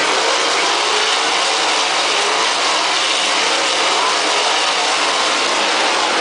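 A pack of 410 winged sprint cars racing on a dirt oval, many V8 engines blending into a loud, steady blare with faint wavering pitches.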